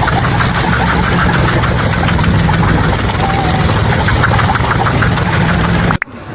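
An engine running steadily and loudly with a low hum and a rattle. It cuts off abruptly about six seconds in.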